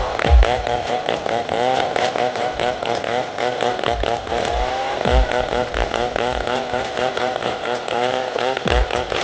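Stihl 070 two-stroke chainsaw running under load while cutting, its pitch dipping and rising again and again. Low thumps sound now and then.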